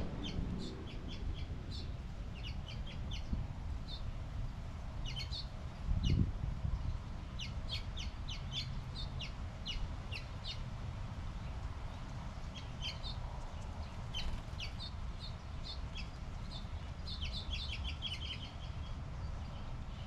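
Small songbirds chirping out of sight: short, high chirps in scattered runs, busiest in the middle and near the end. A brief low rumble about six seconds in stands out over a steady low background hum.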